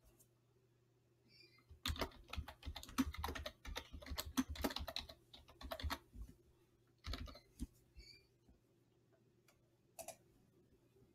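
Typing on a computer keyboard: a quick run of keystrokes, then a few single clicks, the last one near the end.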